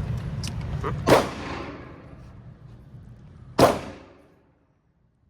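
Two gunshots from other shooters on the range, about two and a half seconds apart, each a sharp crack with a long echoing tail.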